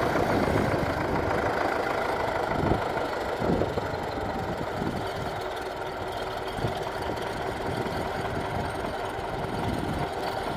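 A vehicle engine idling steadily, with a few soft knocks about three seconds in.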